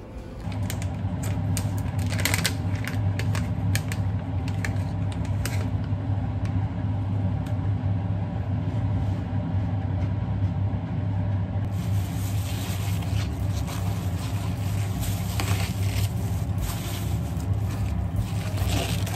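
A steady low hum, with crinkling of a plastic cookie bag being handled in the first few seconds.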